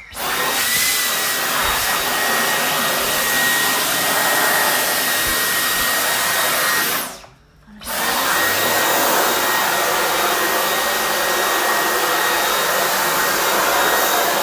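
Dyson V10 cordless stick vacuum's motor switching on and running with a steady high-pitched whine. It cuts out for under a second about seven seconds in, then starts again.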